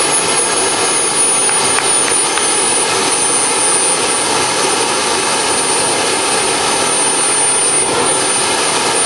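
AMT model gas turbine jet engine of about 45 lb thrust running at a steady speed: a loud, even rush of exhaust with a high, steady whine over it.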